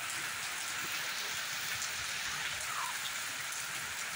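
Heavy rain pouring steadily onto a paved lane and puddles, an even, dense hiss of drops.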